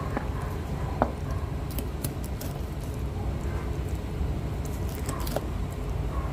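Kitchen knife cutting through a raw chicken leg on a cutting board: a sharp knock about a second in and a few faint clicks from the blade, over a steady low hum.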